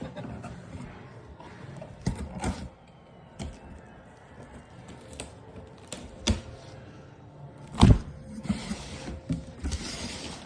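Handling and opening a mailed package: scattered knocks and thumps, the loudest about eight seconds in, with rustling of the packaging toward the end.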